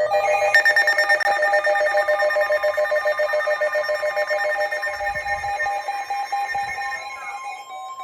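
Electronic emergency alert tone ringing with a fast warble, several pitches at once, heralding a flood warning. About seven seconds in it changes to a different pattern of stepped beeps over a steady tone.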